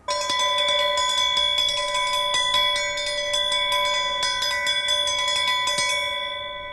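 A hand-held steel triangle rung as a school bell, struck rapidly several times a second so it rings on continuously. The strikes stop about six seconds in and the ringing fades out.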